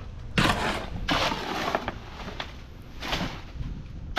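Gravelly soil crunching in five strokes, about two-thirds of a second apart, the first the loudest.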